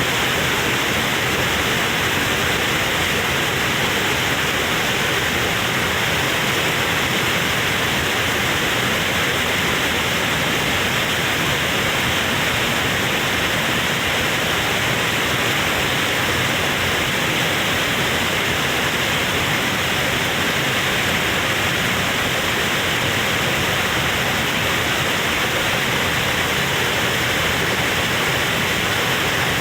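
Waterfall rushing: a steady, unbroken roar of falling water, loud and unchanging.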